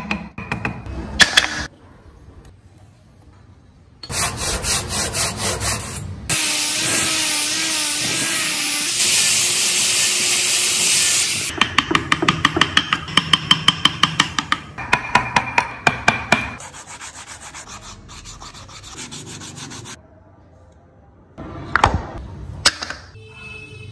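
Hand woodworking: a chisel or gouge scraping and cutting wood in quick repeated strokes, about five a second at times, with a stretch of steady sanding in the middle and a few sharp knocks near the end.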